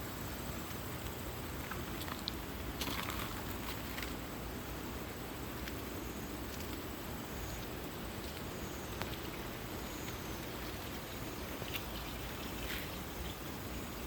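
Steady rushing of a mountain valley stream flowing over rocks, with a few short faint scuffs or clicks over it.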